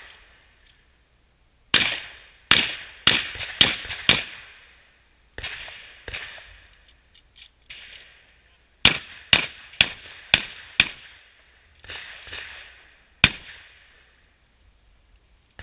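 Shotgun fired in rapid strings: about six quick shots roughly half a second apart, a pause with a few softer reports, another string of about six quick shots, then one more loud shot near the end, each with a short echoing tail.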